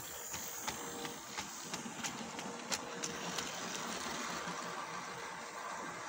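Model freight train running past on its track, its wheels clicking over the rail joints about three times a second for the first few seconds, over a steady running noise that carries on after the clicks stop.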